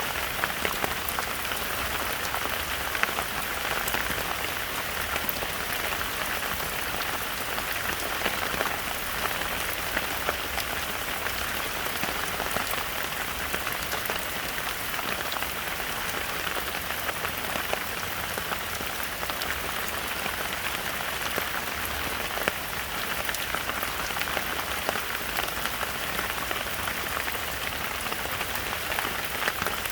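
Heavy rain falling steadily in a forest: a dense, even hiss of rain with many individual drops striking as sharp clicks through it.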